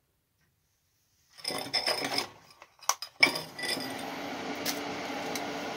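Clinking and handling noise, then a sharp click, and the salvaged welder cooling fan in a homemade coffee-can fume extractor starts and runs steadily with a low hum, drawing air through the carbon filter.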